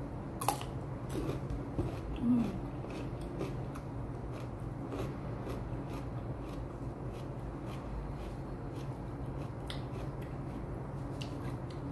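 Biting into a raw cucumber with a sharp crunch about half a second in, then chewing it with crisp, irregular crunches. A brief low hum about two seconds in.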